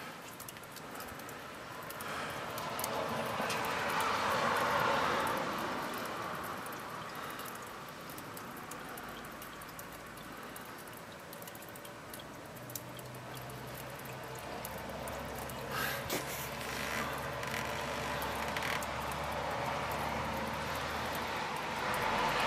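Outdoor background noise: a steady wash of distant traffic, swelling for a few seconds near the start, with a low steady hum through the second half.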